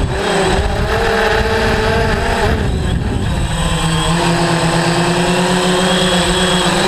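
DJI Phantom quadcopter's motors and propellers running in flight, a steady multi-toned hum whose pitch wavers slightly a couple of seconds in, over a rushing noise.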